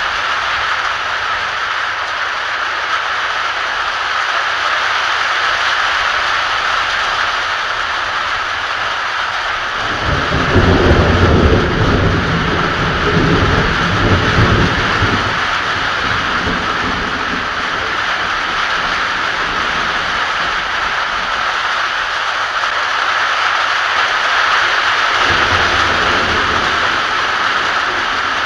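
Heavy rain falling steadily, with a rolling peal of thunder about a third of the way in that rumbles for about five seconds, and a fainter rumble of thunder near the end.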